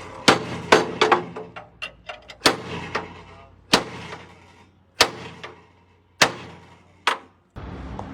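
Hammer blows on metal, each strike sharp and ringing briefly. Several come in quick succession, then one about every second. Near the end a steady mechanical running noise starts.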